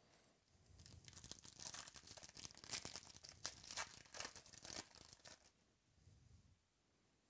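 Baseball card pack wrapper torn open by hand: a few seconds of crinkly tearing and crackling that stops about five and a half seconds in.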